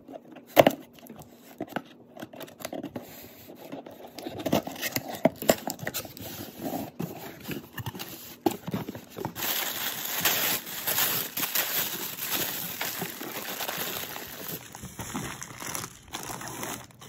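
Scissors cutting packing tape on a cardboard box, with a sharp snap about half a second in, then cardboard flaps being opened. Tissue paper and a plastic zip bag are handled with scattered crackles and a dense steady rustling from about ten to fourteen seconds in.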